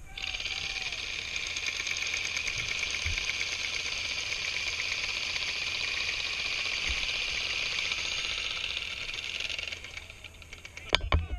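Several airsoft guns firing full-auto at once: a dense, fast rattle of shots that starts right away and dies down about ten seconds in. A few loud sharp knocks follow near the end.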